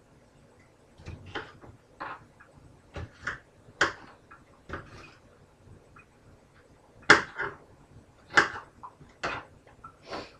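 Kitchen knife chopping red peppers on a plastic cutting board: irregular knocks of the blade against the board, the two loudest a little past the middle, about a second apart.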